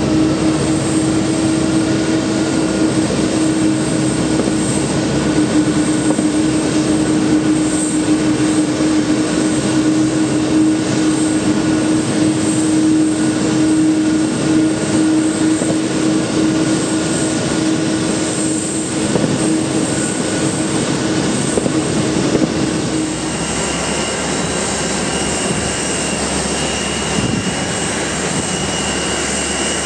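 Boeing 747-400D's four jet engines at takeoff climb power as the jumbo climbs away: a steady, loud engine noise with a strong steady hum. About 23 seconds in, it switches abruptly to quieter airport ramp noise with a steady high-pitched whine.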